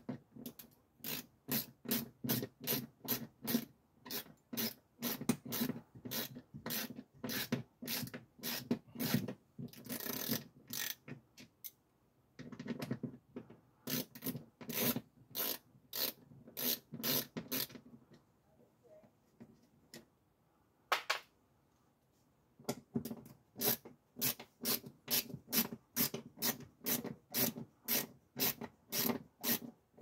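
Hand ratchet clicking in quick, even strokes, about two to three clicks a second, as a Torx screw is backed out; the clicking pauses for a few seconds past the middle.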